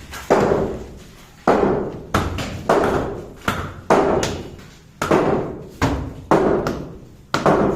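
Repeated heavy blows on teak timber during demolition of a wooden house: about eleven sharp, hollow knocks at uneven intervals of roughly half a second to a second, each dying away briefly.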